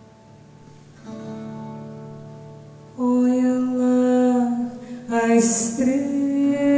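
Acoustic guitar playing soft held chords, then a woman's singing voice comes in over it about three seconds in, with the guitar accompanying.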